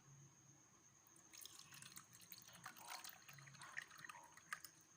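Faint splashing and dripping water, starting about a second in, with irregular sharp drips and splashes.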